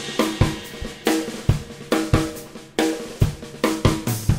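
Intro music driven by a drum-kit beat, with bass drum, snare and cymbal hits at a steady tempo under a sustained pitched line.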